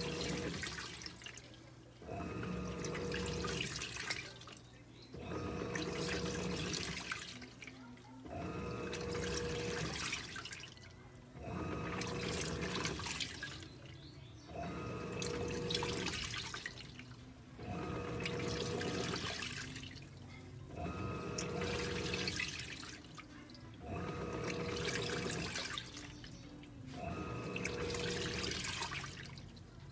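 Electrolux LTE06 top-loading washing machine agitating a load in water: about every three seconds the motor hums and the water sloshes for roughly two seconds, then pauses briefly before the next stroke.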